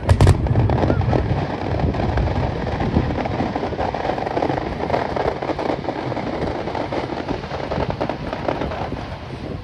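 Fireworks display: a loud shell burst with a deep boom right at the start, then a continuous rapid crackle and popping of bursting shells.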